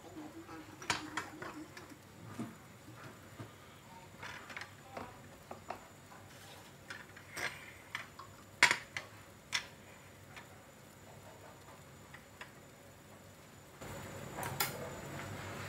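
Ceramic plates and a glass being handled and set down on a kitchen counter: scattered clinks and knocks, the sharpest a little past halfway. A steady background noise rises near the end.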